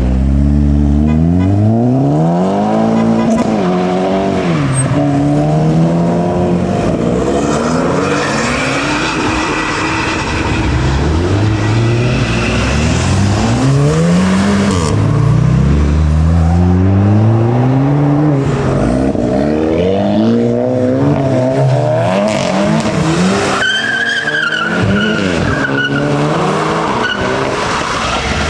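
Car engine being revved hard over and over, the revs climbing and dropping back many times. A high wavering squeal comes in near the end.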